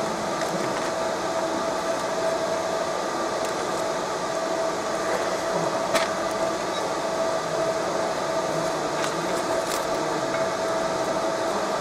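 Raycus 50 W fiber laser marking machine deep-engraving steel: a steady buzzing hiss with a constant whine, and a few sharp clicks.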